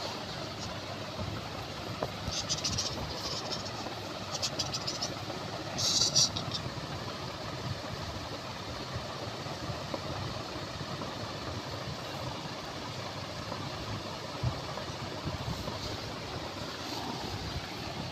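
Steady background hum, with short scratchy rustles of a bedspread as a hand tussles with a kitten on it, three times between about two and six seconds in. The last rustle is the loudest.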